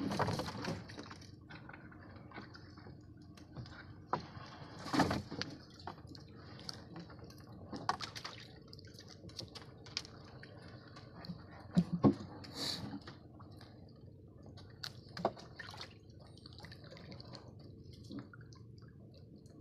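Water dripping and splashing, with scattered knocks, clicks and rustles, as a line of collapsible net crab traps is hauled from the sea and stacked in the boat's hull. The loudest knocks come about 5, 8, 12 and 15 seconds in.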